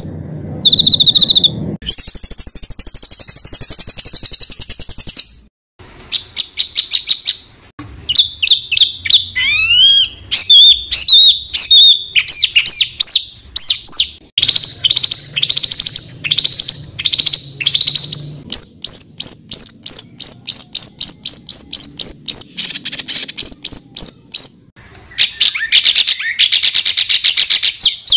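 Songbird tutor recording of dense rapid-fire calls: one run of sharp, high repeated notes and trills after another. It includes a fast buzzy trill about two seconds in, a couple of rising whistled glides about ten seconds in, and quick strings of down-sweeping notes later.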